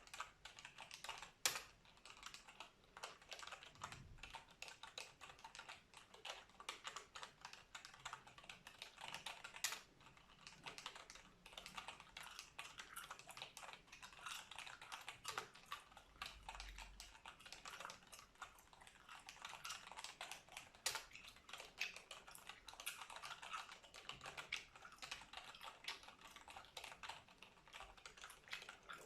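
Computer keyboard typing, close-miked: a rapid, continuous run of key clicks, with a few louder keystrokes standing out about a second and a half in, near ten seconds and near twenty-one seconds.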